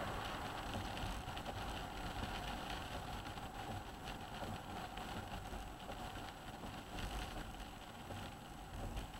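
Car cabin noise while driving on a wet road: a steady hiss of tyres on the wet surface over the engine's hum, with a few faint knocks from the windscreen wipers sweeping.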